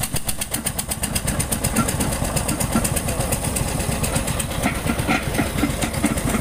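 Diesel engine of a road-construction machine running steadily, with a fast, even knocking beat.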